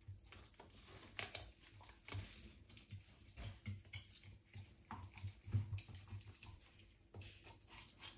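Faint, irregular wet squelches and scrapes of a knife working through a large snapper being filleted, with soft knocks.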